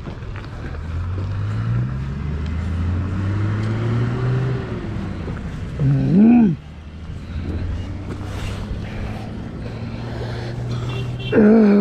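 A vehicle engine pulls away and gathers speed, its pitch rising over a few seconds before it settles into a steady run. Two short, loud pitched sounds cut in over it: one swoops up and down about six seconds in, and a wavering tone comes near the end.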